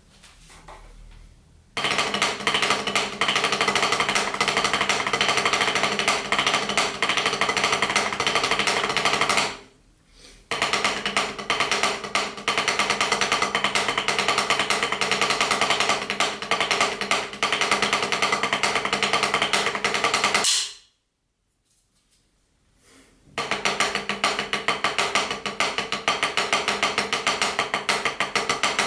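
Wooden drumsticks on a drum practice pad, playing fast, even paradiddle stickings. There are three runs, with a brief stop about a third of the way in and a longer pause of a few seconds about two-thirds in.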